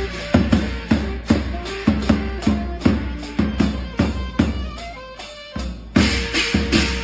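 A small band playing loud at close range: a hand-held drum beaten with a stick about twice a second, a saxophone melody over it, and a pair of large hand cymbals clashing. After a short break just before the end, the playing comes back louder, with the cymbals crashing bright.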